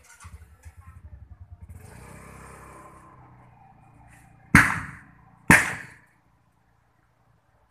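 A motor vehicle running past with a low, rapidly pulsing rumble, then two loud sharp knocks about a second apart.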